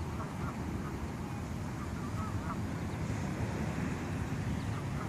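Canada geese honking: short calls in small clusters, a few about half a second in, more around two seconds in and again near the end, over a steady low rumble.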